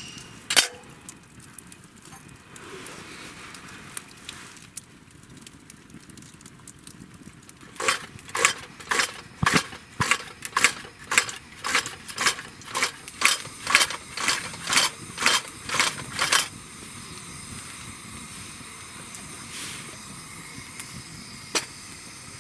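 Hand pump of a pressure lantern being worked, an even run of about sixteen strokes at roughly two a second, with a wood campfire crackling low behind it. After the pumping stops, a steady hiss carries on.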